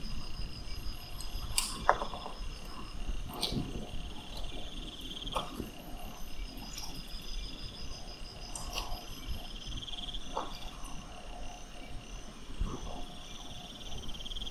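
Bearded dragon crunching and chewing a small lizard: sharp, irregular crunches every second or two. A high chirping trill repeats in the background.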